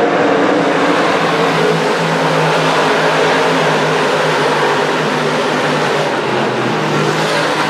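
A pack of 358 small-block V8 dirt modified race cars racing at speed, their engines blending into one steady, loud drone.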